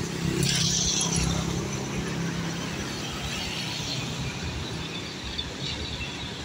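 Road traffic going by: a steady low engine hum, with a louder hiss about half a second to a second in that then eases off.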